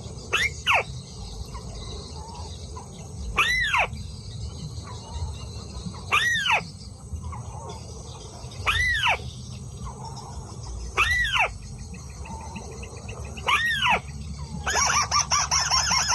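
White-browed crake calls: a single squealing, arched note, repeated six times about every two and a half seconds. Near the end it breaks into a fast, continuous chattering run of the same notes.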